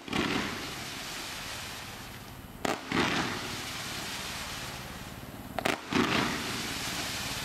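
100-shot fan-shaped firework cake (Silver Cyclone Tail) firing volleys of silver-tailed shots: three volleys about three seconds apart, each a quick double bang followed by a couple of seconds of fading hiss as the tails burn and burst.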